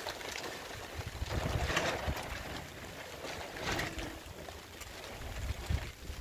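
Wind buffeting the microphone outdoors: an irregular low rumble, with a couple of brief rushing gusts.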